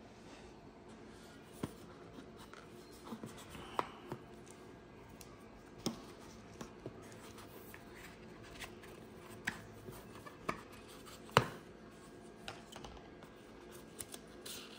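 Hands handling an AirPods Pro box, its charging case and a phone on a countertop: faint rubbing of cardboard and plastic with a scatter of sharp clicks and taps, the loudest about eleven seconds in.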